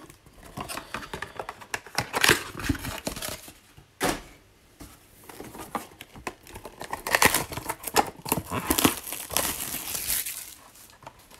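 Shiny wrapper of a football trading-card pack being torn open and crinkled in the hand, in irregular bursts of crackling.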